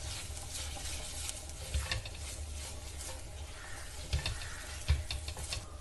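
Spatula stirring and scrambling eggs into frying onions in a cast-iron pan, with a faint sizzle, scraping strokes, and a few sharper knocks of the spatula against the pan.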